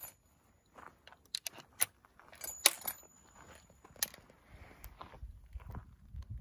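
Handling of an 1866-pattern Peabody falling-block rifle's action: a dozen or so sharp, separate metallic clicks and clinks as the breech is worked before the shot. A soft low scuffing comes in near the end.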